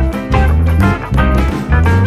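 Background music with a steady bass beat and plucked guitar-like notes.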